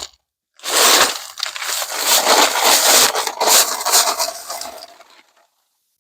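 Dry bagged concrete mix pouring out of the bag, a steady rushing hiss that starts about half a second in and fades out near the end.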